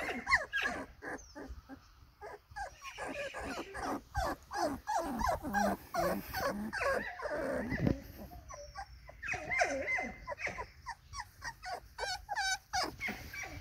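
A litter of pit bull puppies play-fighting, with many short, overlapping growls, whines and yips.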